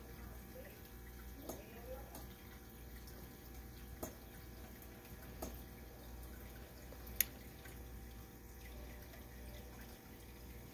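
Faint aquarium water trickling and dripping over a steady low pump hum, with a few sharp drips or ticks scattered through, the loudest about seven seconds in.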